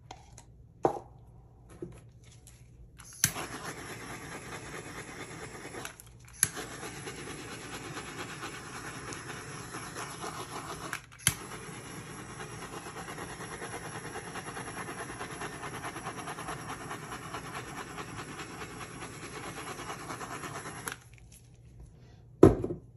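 Handheld butane torch clicking alight about three seconds in and hissing steadily as it is passed over freshly poured epoxy. It goes out twice for a moment and clicks back on each time. It stops near the end, followed by a loud knock.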